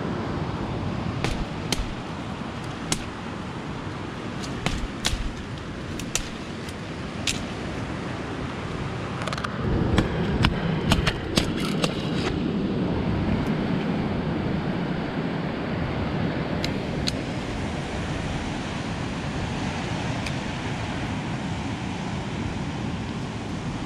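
Steady wind and surf noise, with scattered sharp cracks and snaps of branches being broken in the first half. The cracks are loudest and come in a cluster about ten to twelve seconds in.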